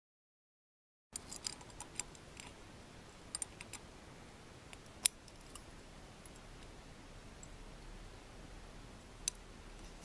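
Small metal clicks and faint keyring jingle as a key works in the lock of Szco Supplies Scorpion steel handcuffs, then one sharp click about five seconds in and another near the end: the key turning counter-clockwise to release the double lock. The first second is silent.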